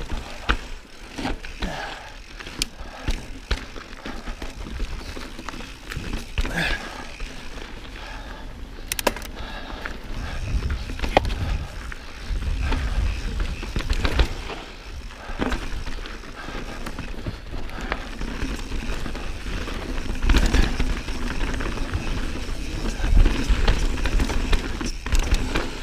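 2019 Santa Cruz Bronson mountain bike riding a dirt and rock trail: tyres rolling over the ground, with many clicks and rattles from the bike over bumps. A low rumble swells about ten seconds in and again near twenty seconds.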